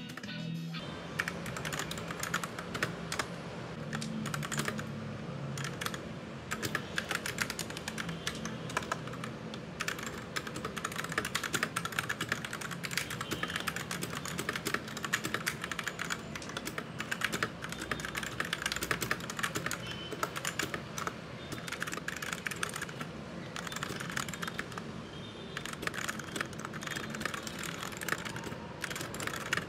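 Fast typing on a Royal Kludge RK61 compact mechanical keyboard: a dense run of key clicks and clacks, broken by a few short pauses.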